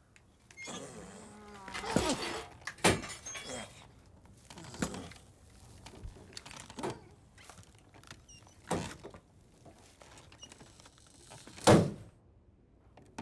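Creaking, then a series of hollow thunks and clattering knocks of wood and metal a second or two apart, the loudest knock near the end: the kratt, a creature built from old farm tools and junk, stirring and clattering.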